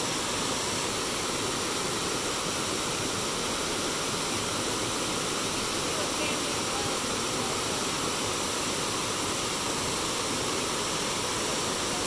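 River water flowing in a steady, unbroken rush.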